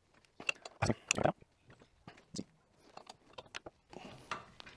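Irregular metallic clicks and short scrapes of wrenches working a drive shaft puller's forcing screw, drawing the CV axle through the rear wheel hub and bearing without hammering. A cluster of louder clicks comes about a second in.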